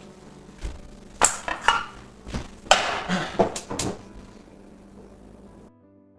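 Kitchen clatter of pans, dishes and utensils: a quick series of sharp knocks and clinks for about three seconds, then it goes quieter toward the end.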